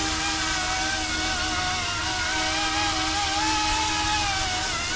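YUXIANG F09-S scale Coast Guard RC helicopter's electric motor and rotors whining in low flight, the pitch wavering up and down as the throttle is worked.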